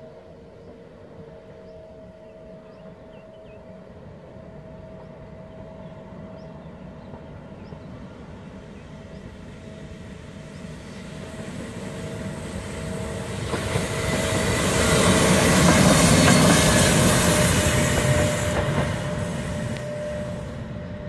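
Red ÖBB electric locomotive approaching on the Semmering line and passing close by: the rumble of its wheels on the rails builds slowly and peaks about three-quarters of the way through, then eases slightly.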